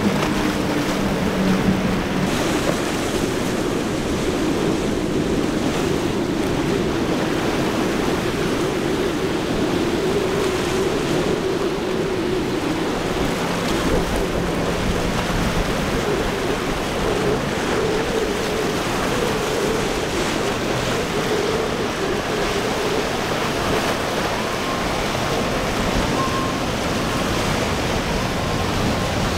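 Center-console boats' outboard engines running at speed, a droning engine note rising and fading as a boat passes, mixed with a steady hiss of spray, surf and wind on the microphone.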